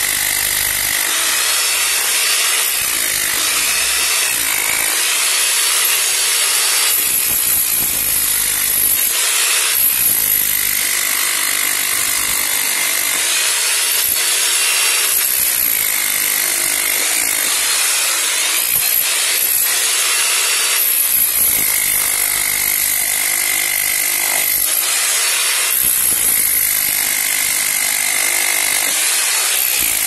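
1800 W electric demolition hammer breaking concrete, a continuous loud hammering with a high whine that comes and goes several times.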